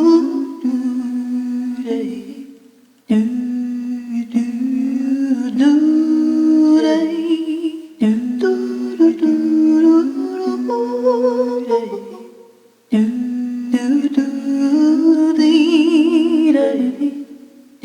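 Wordless female singing in two-part vocal harmony: a simple melody line with a second voice moving in parallel with it. The singing comes in four phrases with short breaks between them, with vibrato on the held notes near the end.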